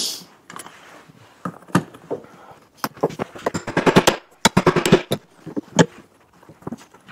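Hammer striking Alligator RS125 belt lacing to fasten it onto a conveyor belt: a series of sharp metallic blows, sparse at first, then quick clusters of strikes in the second half.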